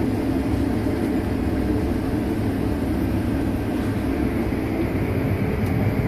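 Combine harvester running steadily while it harvests corn: a constant deep drone of the engine and threshing machinery.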